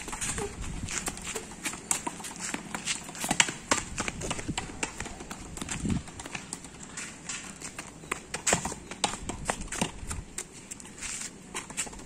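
A small child's sandalled footsteps on concrete paving: quick, irregular slaps and clicks, several a second, with a few louder knocks among them.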